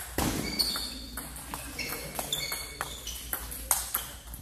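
Table tennis ball being hit back and forth: quick sharp clicks of ball on paddle and table, with more clicks from other tables echoing around the hall.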